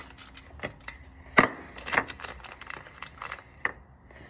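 Small machined aluminium RC suspension parts being handled and unpacked from plastic bags: a run of light clicks and rustles, with two sharper clicks about one and a half and two seconds in.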